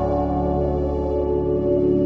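Ambient background music of slow, sustained tones.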